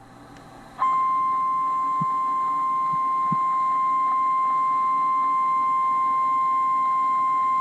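NOAA Weather Radio warning alarm tone: a single steady 1050 Hz beep that starts abruptly about a second in and holds unchanged, the alert signal that comes before a broadcast warning message.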